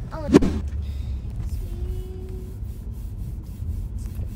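Low road rumble inside a slowly moving car's cabin, with one sharp knock about half a second in.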